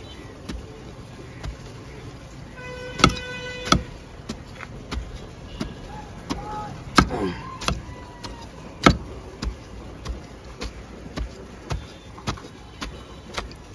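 Metal hand trowel chopping into a mulberry tree's compacted root ball to cut away excess soil: irregular sharp strikes and scrapes, about one a second.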